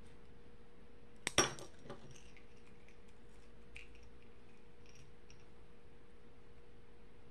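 Metal keychain split ring and tweezers clinking as a charm is worked onto the ring: a small click, then one sharp clink with a short ring about a second and a half in, followed by a few faint ticks.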